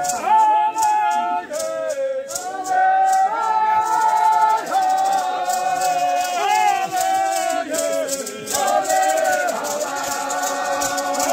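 Xukuru-Kariri dancers singing a chanted dance song together in long held notes, with hand rattles (maracás) shaking in a steady pulse.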